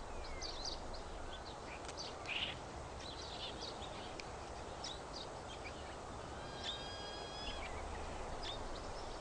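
Forest ambience: a low steady hiss with scattered short, high bird chirps, and a brief clear whistled call about two-thirds of the way through.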